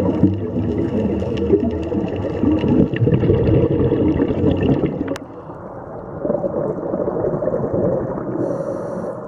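Underwater sound through a camera housing: a muffled, churning wash of water with gurgling. About five seconds in it cuts with a click to a duller, quieter underwater wash.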